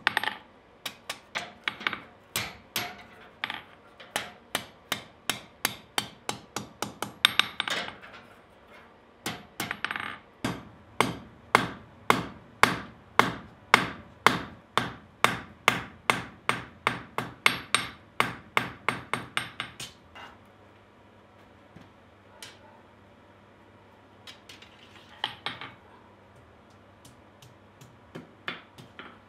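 Hand hammer striking hot steel on an anvil in runs of sharp blows, about three a second, with a short pause about eight seconds in. About two-thirds of the way through the hammering stops, leaving a low steady hum and a few single strikes near the end.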